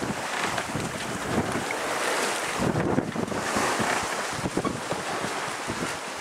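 Wind buffeting the microphone in uneven gusts on a sailing yacht under way, over the rush of choppy sea water along the hull.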